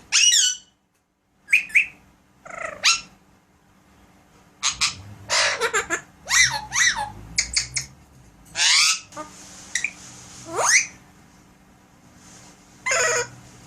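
Alexandrine parakeet giving a string of short squawks and whistled calls, many sliding up or down in pitch, with short pauses between them and a rising whistle about three-quarters of the way through.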